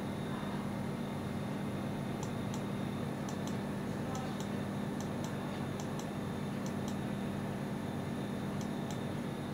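A steady low electrical or mechanical hum with a hiss behind it, and faint high ticks coming in pairs, about one pair a second, through the middle.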